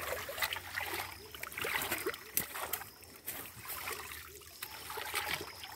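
Shallow creek water splashing and sloshing in small irregular bursts, with plants rustling, as someone wades among the streamside vegetation.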